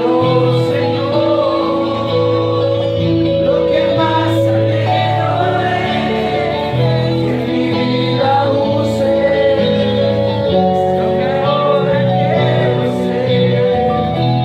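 Worship song: held chords with voices singing over them.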